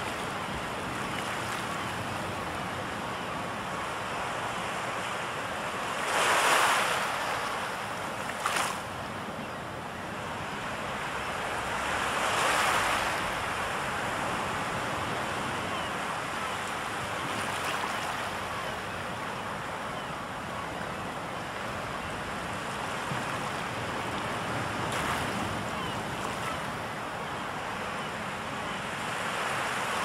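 Sea waves washing onto a shore in a steady rush of surf, with wind. Larger waves swell up about six seconds in, loudest of all, and again about twelve seconds in, and a short sharp splash comes about eight and a half seconds in.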